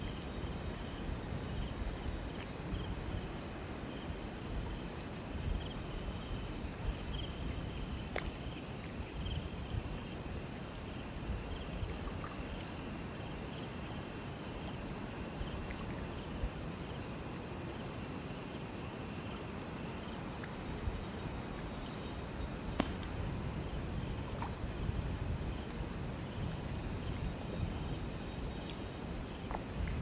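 Crickets chirping in a steady chorus, with a continuous high trill over rows of repeating chirps and a low rumbling background, broken by a few faint clicks.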